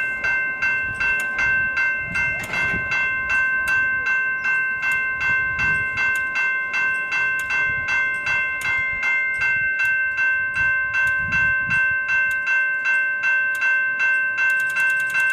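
Level crossing warning bell ringing in a steady, even rhythm of about two and a half strikes a second, signalling that the boom gates are down for an approaching train. A low rumble swells and fades a few times beneath it.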